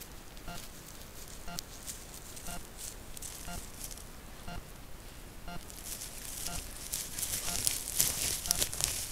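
Trail-camera recording with no calls from the wolves: a faint short electronic tick repeats about once a second, and from about six seconds in a dense crackling rustle builds up and becomes the loudest sound.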